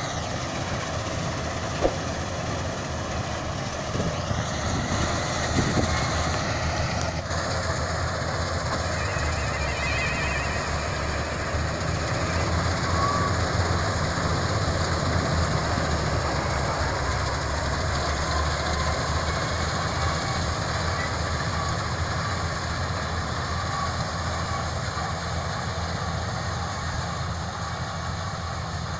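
Combine harvester running steadily in the field, a constant low engine and machinery drone.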